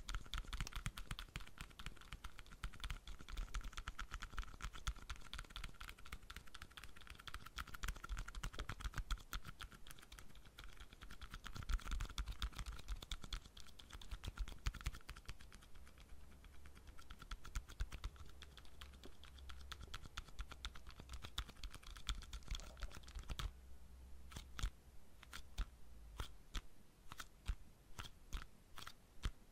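Fingertips and nails tapping and scratching quickly on the bottoms of two small white planter pots, a dense run of light clicks. About 23 seconds in, the taps become sparser and more distinct.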